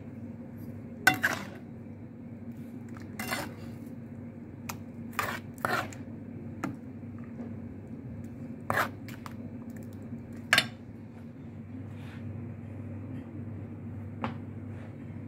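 A metal spoon clinking and knocking against a steel pan of berry sauce, about nine irregular strikes, over a steady low hum.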